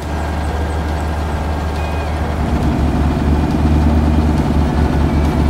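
Cartoon sound effect of a heavy farm vehicle's engine running with a low pulsing rumble. It grows louder about halfway through as the vehicle drives in.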